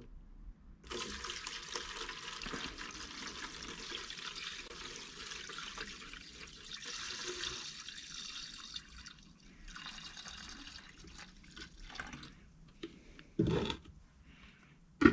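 Liquid rust-remover poured from a bottle into a plastic tub of steel bolts and caliper hardware: a steady pour from about a second in to about nine seconds, then a few broken trickles and drips. A short dull thud comes near the end.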